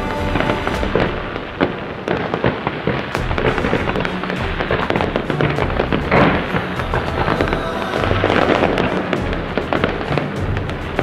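Aerial fireworks bursting in a rapid, irregular run of bangs and crackles, with music playing underneath.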